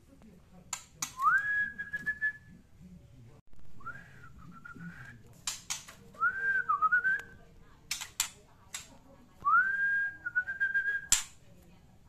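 Caged white-rumped shama (muray medan) whistling four times, each phrase rising quickly to a clear held note and breaking into a short wavering trill. Sharp clicks come between the phrases, with a loud one near the end.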